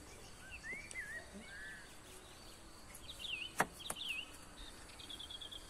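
Birds calling in short whistled phrases that rise and fall, ending in a quick trill near the end. A little past halfway, a kitchen knife knocks twice on a wooden cutting board as pineapple is sliced.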